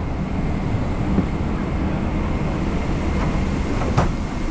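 Steady low rumble of a parked Boeing 777-200ER's cabin at the gate, with a few light clicks and a sharper click about four seconds in.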